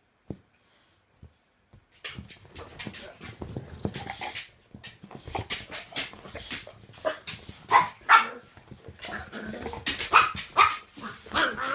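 Dogs play-fighting, miniature pinschers and an American bulldog barking, yipping and whining in quick, irregular bursts that start about two seconds in.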